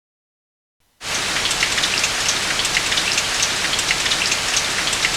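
Heavy rain falling on a hard surface, a steady hiss dense with individual drop hits, starting suddenly about a second in.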